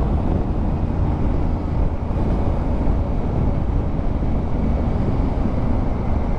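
Steady riding noise of a 2019 Honda Africa Twin CRF1000L under way: its parallel-twin engine running under a mix of wind and road noise, even throughout.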